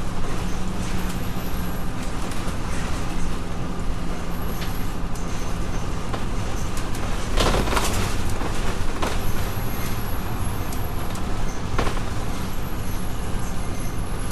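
Double-decker bus running along a road, heard from inside the cabin: a steady engine hum and road noise, with a few short knocks and rattles, the loudest about halfway through.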